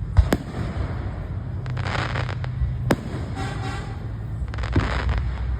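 Fireworks going off: a few sharp bangs, near the start, about three seconds in and near the end, with stretches of hissing crackle between them over a low rumble.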